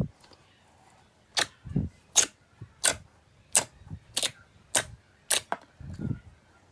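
Slime being pressed and poked by hand, giving sharp clicking pops about every two-thirds of a second, with a few softer low squelches between them.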